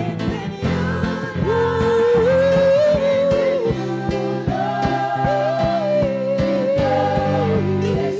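Live gospel worship music: a singer holding long, gliding notes over a band with a steady drum beat.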